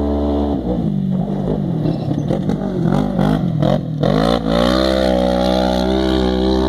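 Off-road rally buggy engine revving at rising and falling pitch as it comes over the rough track, then climbing sharply about four seconds in as it passes close and holding high revs as it pulls away.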